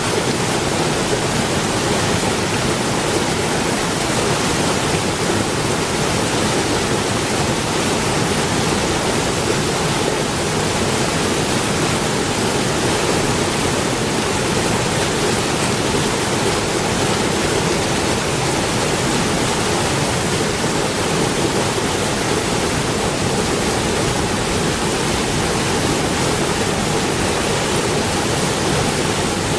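A waterfall's water rushing: a loud, steady, unbroken noise of falling and splashing water that holds the same level throughout.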